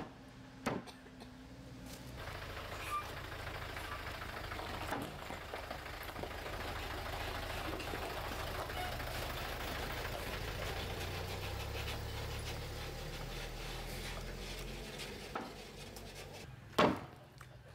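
A truck engine running along the road, building about two seconds in, holding steady, then fading near the end. Sharp cleaver chops on a wooden chopping block come about a second in and again near the end.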